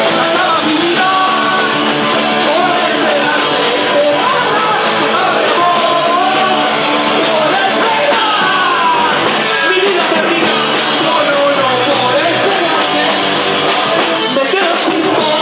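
Punk rock band playing live, with distorted guitars and drums under loud sung, near-shouted vocals.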